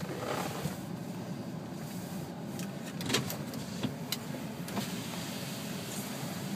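Steady low hum of a car idling, heard from inside the cabin, with a few scattered light knocks and clicks.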